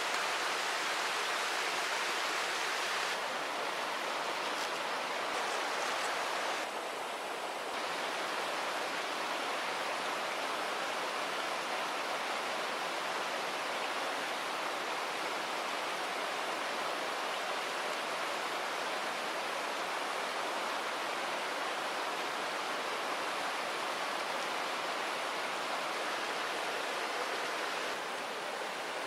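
River water rushing steadily, an even hiss with small shifts in level as the shot changes.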